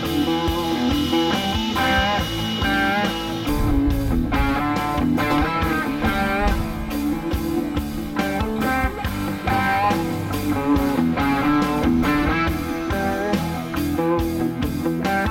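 Background music: an instrumental rock track led by guitar with a steady beat.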